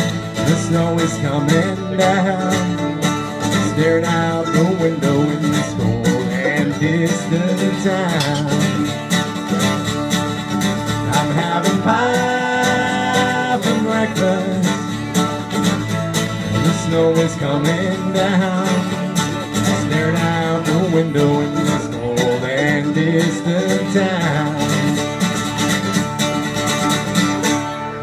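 Live country-style band music from acoustic guitar and a second guitar, with plucked strings over a steady rhythm and a chord held for a moment about halfway through. The song stops at the very end.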